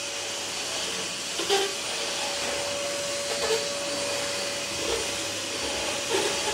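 Stick vacuum cleaner running steadily on a hardwood floor: a constant rush of air with a steady motor whine.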